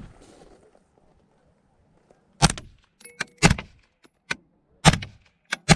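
Desert Tech MDRX rifle firing four sharp shots about a second apart, starting a couple of seconds in, with fainter clicks and short metallic pings between them.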